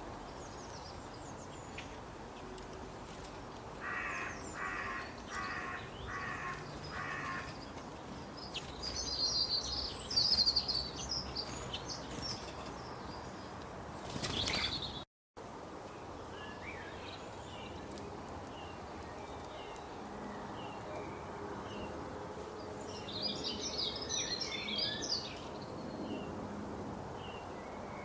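Wild birds calling and chirping over a steady outdoor background hiss. About four seconds in, one bird gives five evenly spaced calls. Two bursts of high, quick chirping follow, one around ten seconds in and one near the end. The sound cuts out for a moment about halfway through.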